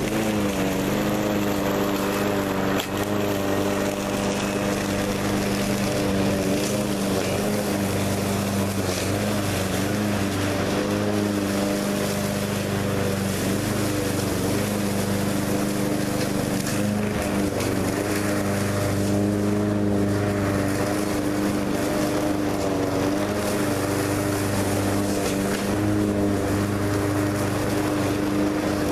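Troy-Bilt TB360 walk-behind lawn mower running steadily as it is pushed across the lawn bagging leaves. It comes in suddenly at the start and then holds one even engine note that wavers slightly.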